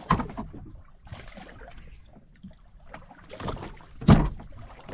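Knocks and thumps on a small fishing boat over a rough background of wind and water: one sharp hit just after the start and a louder one about four seconds in.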